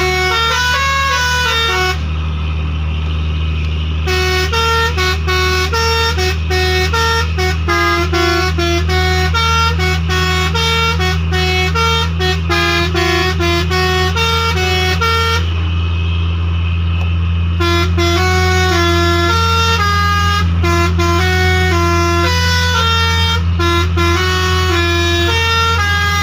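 Six-trumpet Basuri 'telolet' musical air horn with 31 notes, fitted to a truck, playing a tune of quick stepped notes over a steady low hum.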